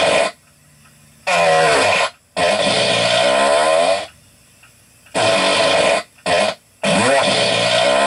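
A run of fart sounds, one after another with short pauses between them: about half a dozen, each lasting from a fraction of a second to under two seconds, their pitch wavering up and down.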